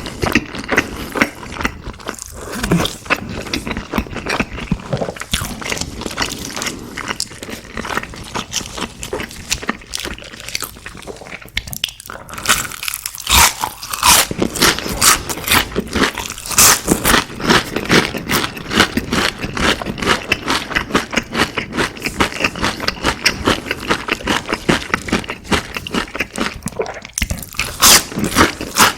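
A person biting and chewing crispy fried food, with continual crackling crunches and louder crunchy bites now and then.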